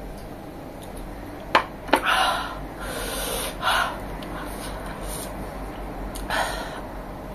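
Two sharp clicks of a drinking glass set down on the table, then several short, breathy gasps and exhales through the mouth from an eater reacting to spicy food.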